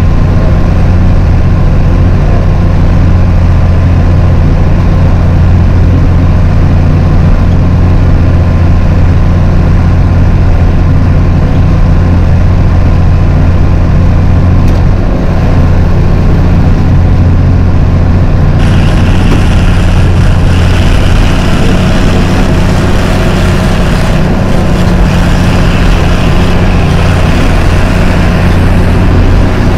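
Tractor engine, a John Deere, running at a steady, constant note. About two-thirds of the way through, a brighter hissing, rattling layer joins it.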